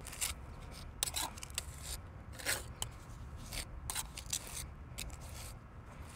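Steel tuck pointer scraping across a steel finish trowel and pushing fresh mortar into a brick bed joint: a run of short, irregular scrapes.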